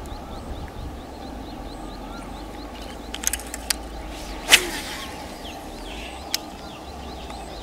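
Fishing gear being handled during lure casting: a few sharp reel clicks, one louder sharp snap about four and a half seconds in, and another click near the end. Under them runs a steady low rumble and a fast, repeated high chirping.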